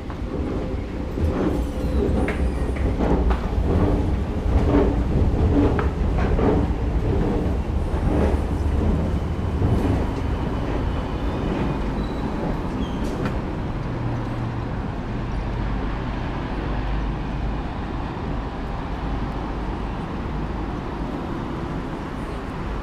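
Busy public-space ambience while walking: the first half has irregular knocks, clatter and footsteps echoing in a station passage. About halfway it gives way to the steadier noise of an open city street with a low rumble of traffic.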